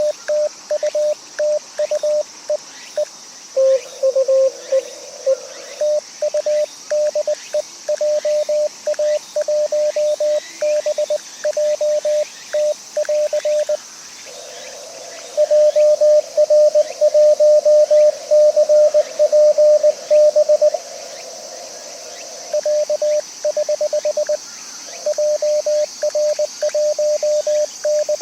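Morse code (CW) from an amateur radio transceiver: a steady train of keyed beeps near 600 Hz. About four seconds in a slightly lower-pitched signal joins briefly, and about halfway through a louder keyed stretch with hiss beneath it runs for several seconds.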